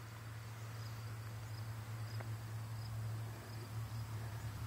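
A cricket chirping steadily, about two short high chirps a second, over a steady low hum.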